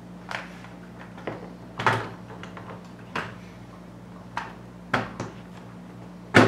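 Hot Wheels plastic track pieces and base clicking and knocking as they are pushed and snapped together by hand: a scattering of sharp, irregular clicks, the loudest just before the end.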